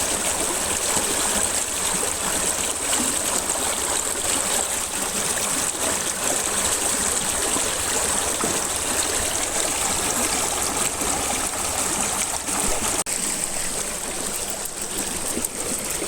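River water flowing steadily, a continuous rushing with a brief dip in level about thirteen seconds in.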